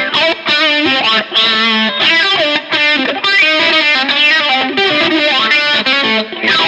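Electric guitar played through an All Pedal Macrodose envelope filter: a quick phrase of short notes, each with an auto-wah sweep on its attack, ending on a note struck and left to ring.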